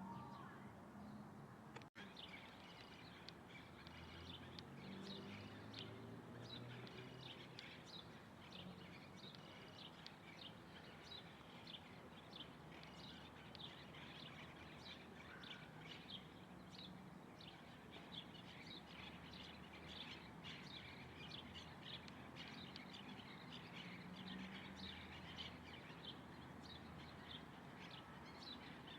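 Many small birds chirping in a dense, continuous run of short high chirps, over a faint steady low rumble of background noise. The sound drops out for an instant about two seconds in, and the chirping starts up right after.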